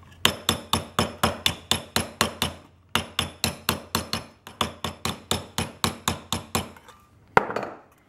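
Small hammer tapping the folded rim of an aluminium drink can against a round-edged wood block, light quick taps at about four a second with a short break near three seconds, flattening the fold down. The tapping stops a little before seven seconds, followed by one louder knock.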